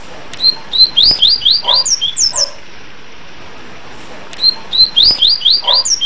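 A papa-capim (coleiro seedeater) sings its 'tui tui' whistle song twice, each phrase about two seconds long with a pause between. Each phrase is a rapid string of high, clear, slurred whistles that ends in a few higher notes, heard over a steady hiss.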